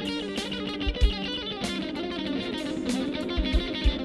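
Electric guitar played live: a fast run of melodic notes over held low notes. A few deep thuds come about a second in and again near the end.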